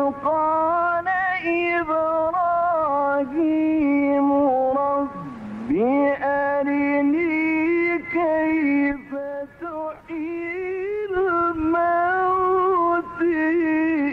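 A man's voice in melodic Quran recitation, holding long, ornamented notes with brief breaks. About five seconds in, the pitch drops low and glides back up into the next phrase.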